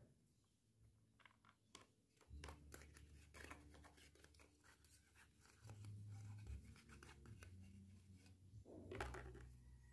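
Faint handling noises of small plastic toys: scattered light clicks and scratching as a plastic baby doll is turned in the hands and rubbed with a small plastic piece against a plastic toy bathtub. A low hum comes in about two seconds in.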